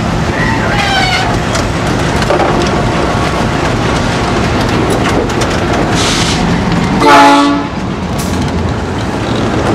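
GE U20C diesel-electric locomotive's 12-cylinder diesel engine running steadily close by, with a brief, loud horn blast about seven seconds in and a short hiss just before it.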